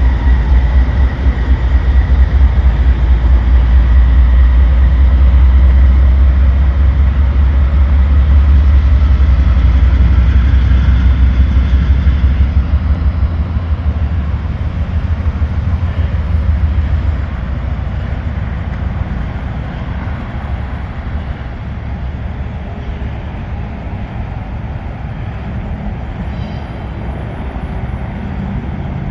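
Union Pacific diesel-electric locomotive's engine rumbling as it moves slowly past, a heavy low throb that drops off about seventeen seconds in as the locomotive draws away.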